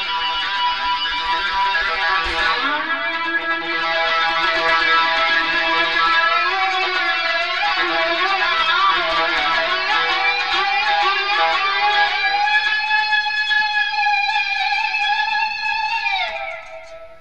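Electric lap steel guitar played with a ceramic slide through the Sound Stone Sustainer: long notes hold on without dying away while the slide glides and wavers in pitch. The notes cut off about a second before the end.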